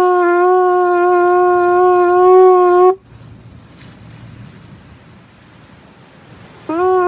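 A conch shell trumpet, made from a queen conch (Lobatus gigas) shell with its tip knocked off and the inner columella removed, blown in a steady held note that cuts off about three seconds in. After a pause, a second blast on the same pitch starts near the end.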